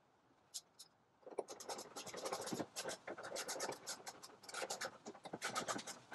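Ratchet wrench clicking in quick runs of strokes as the upper bolt of a new liftgate strut is tightened, starting about a second in after a couple of single clicks.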